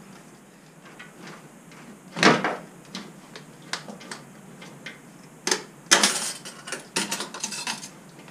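Aluminium intake pipe being worked off its couplers and lifted out of the engine bay: a sharp knock about two seconds in, then a run of clanks and scraping metal knocks from about five to eight seconds.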